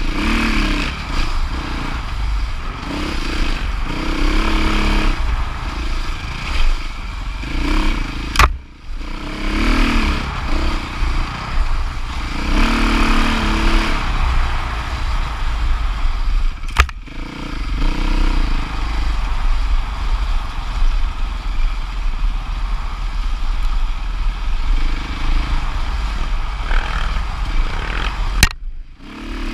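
Dirt bike engine running hard at varying revs, its pitch rising and falling, with a heavy wind rumble on the microphone. The sound breaks off briefly three times.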